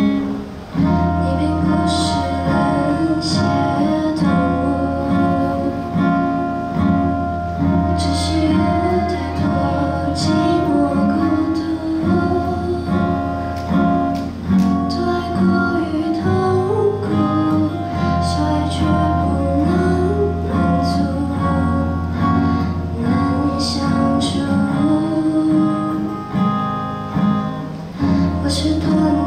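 A live acoustic song: a female voice singing over a strummed acoustic guitar, with a few sharp cajón slaps scattered through it.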